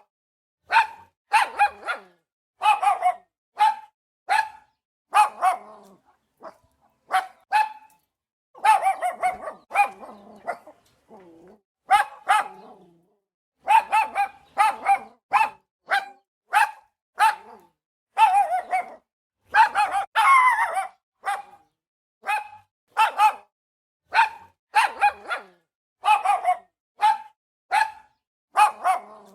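A dog barking over and over in short, sharp barks, often two or three in quick succession, with longer, rougher stretches about nine seconds in and again about twenty seconds in.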